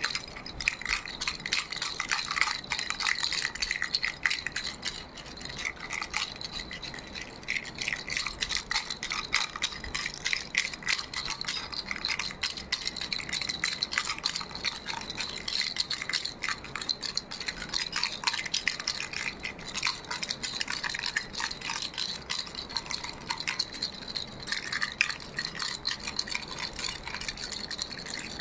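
Baby's toy rattle shaken continuously, a dense run of rapid clicks with a bright, high ringing.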